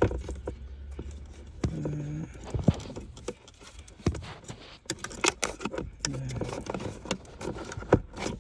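Irregular clicks, knocks and rattles of plastic interior console trim being handled as its retaining clips are pushed and pried loose.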